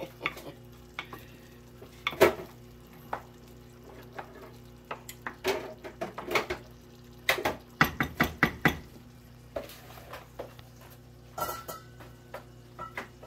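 A spoon scraping and clinking against a stainless steel pot as meat is stirred on the stove. The knocks come irregularly, with a quick run of clinks around eight seconds in.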